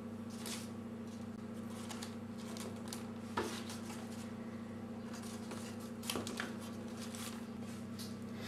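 Quiet kitchen handling over a steady low hum: soft rustles as fried eggplant slices and tomato sauce are layered into a baking pan, with a few sharp clicks of kitchenware, one about three and a half seconds in and two about six seconds in.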